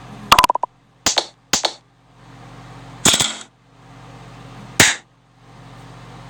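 Fidget cube being clicked close to the microphone: about five sharp, loud clicks at uneven intervals, the first a quick rattle of several clicks.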